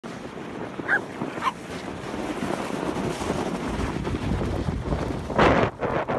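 Wind buffeting a phone microphone outdoors, a steady rushing noise, with two short high yips from a small dog about a second in and a louder gust of noise near the end.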